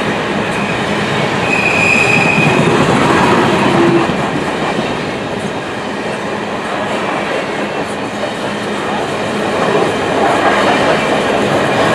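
Coal cars of a long CP freight train rolling past, with the steady rumble and clatter of steel wheels on the rails. A brief high wheel squeal comes about two seconds in.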